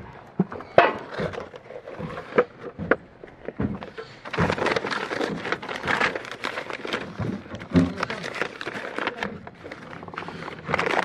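Stiff paper wrapping crinkling and rustling as it is folded back by hand, with scattered taps and clicks at first, then a dense, continuous rustle from about four seconds in.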